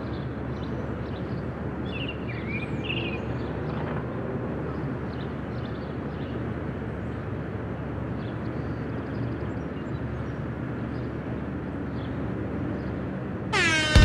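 Outdoor street ambience: a steady low rumble of distant traffic with a few short bird chirps in the first few seconds. Near the end a sudden, louder falling swoop of several tones breaks in.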